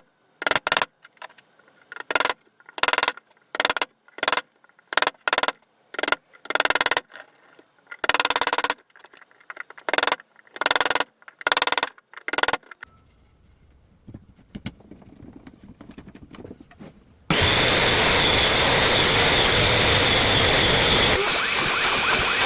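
Handsaw cutting through a wooden post in quick back-and-forth strokes, about two a second, stopping after about 13 seconds. About 17 seconds in, loud electronic music starts.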